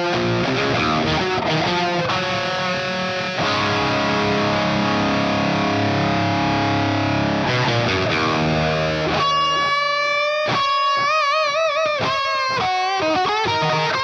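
Frankenstrat-replica electric guitar played with heavy distortion: full ringing chords for about the first nine seconds, then a lead line of single sustained notes with wide vibrato and bends.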